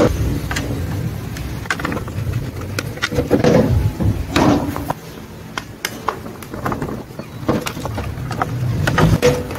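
Plastic car side-mirror housing and screwdriver being handled during disassembly: scattered clicks and knocks of plastic parts and tools, over a low steady background rumble.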